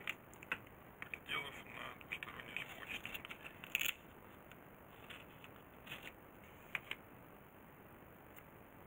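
Scissors snipping and yellow adhesive tape being peeled off its roll and cut into strips: a quick run of short clicks and rasps through the first four seconds, then a few more snips between about five and seven seconds in.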